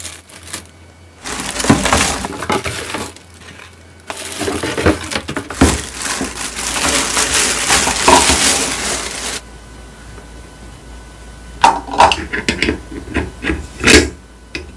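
Plastic wrapping crinkling and rustling as a cotton candy machine and its plastic spoon are unwrapped, in bursts with one long crinkle in the middle. Near the end come a handful of sharp plastic clicks and taps as the machine's spinner head is handled.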